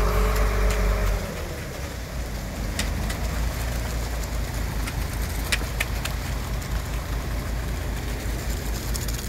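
Concrete mixer truck's engine running while the drum discharges concrete down the chute. It is louder for about the first second, then settles to a steady low run, with a few faint clicks.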